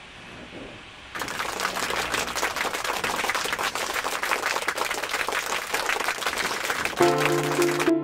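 A dense, rapid crackle of clicks starts suddenly about a second in. Music with held notes comes in near the end.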